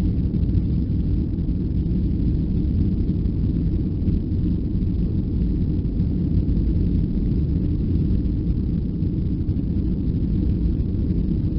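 Steady low rumble of a Boeing 737-400's CFM56 jet engines and airflow as heard inside the passenger cabin, holding an even level with no change.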